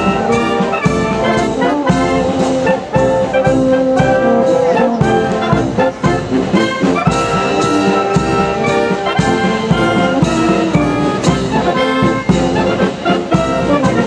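Military brass band with trumpets playing a piece over a steady beat.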